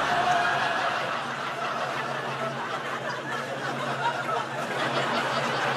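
Studio audience laughing, a dense crowd laugh.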